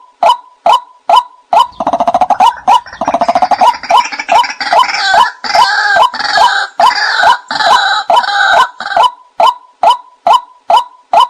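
White-breasted waterhen calls: a monotonous series of short 'kwak' notes at about two a second, with a louder, denser burst of croaking calls joining in from about a second and a half in until near the end, as played for a hunter's decoy call.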